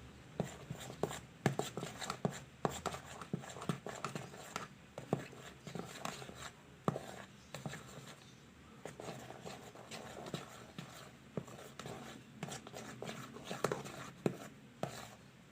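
A stirrer working through a sticky, foamy mix of liquid soap and white glue in a container, making a faint run of irregular small taps, clicks and squelches as the foam is stirred into the glue.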